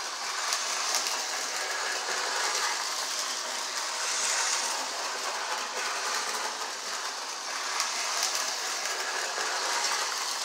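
Lionel 8632 4-4-2 O gauge toy steam locomotive and tender running on tubular three-rail track: a steady whir of the electric motor and gears, with the wheels clicking over the rail joints.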